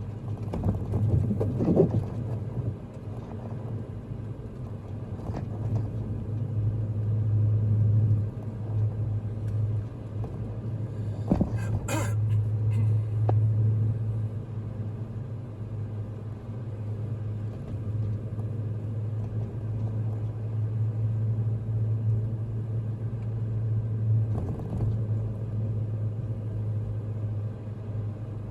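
Vehicle driving with four-wheel drive engaged, heard from inside the cab: a steady low rumble of engine and road, with a few short knocks and a sharper clatter about twelve seconds in.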